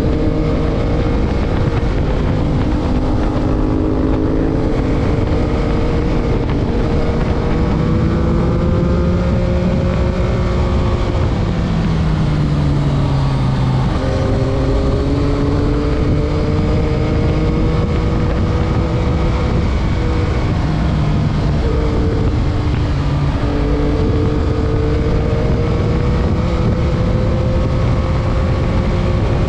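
A 2021 Yamaha MT-09's 890 cc three-cylinder engine heard on board while riding, its note rising and falling with the throttle, with wind rush over the microphone. About halfway through the engine note sinks, then jumps back up.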